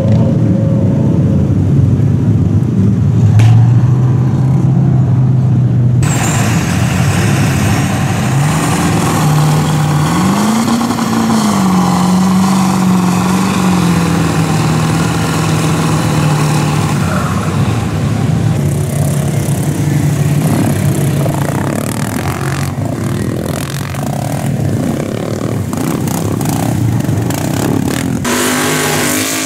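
Engines of lifted mud-bog trucks running and revving under load as they churn through deep mud and water. The pitch climbs and falls with the throttle. The sound changes abruptly a few seconds in and again near the end, where one clip gives way to another.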